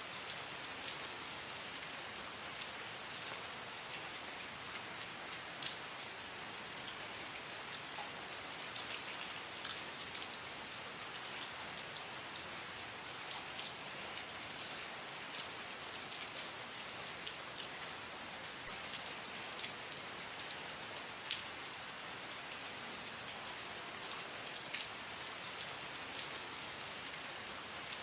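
Steady rain falling, an even hiss with scattered individual drops pattering on a surface.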